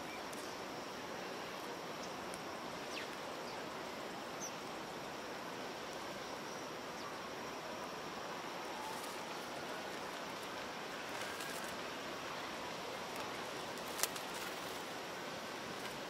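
House sparrows chirping now and then over a steady hiss of city background noise, with one sharper chirp about fourteen seconds in. A faint tone slowly rises and falls in the background.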